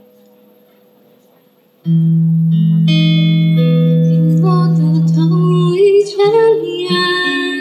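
Live acoustic duo playing: a woman singing into a microphone over an acoustic guitar. The music comes back in loud about two seconds in, after a quiet lull, with a long held low note and then a gliding vocal line over ringing guitar notes.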